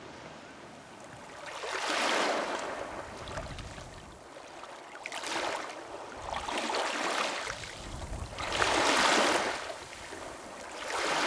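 Baltic Sea waves breaking and washing onto the shore, swelling and fading about four times, roughly every three seconds.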